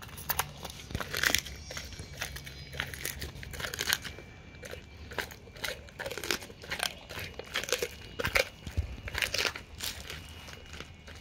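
A dog chewing a raw narrow-barred Spanish mackerel head, crunching through the fish's bones. The crunches and bites come irregularly, several a second in places, with short pauses between.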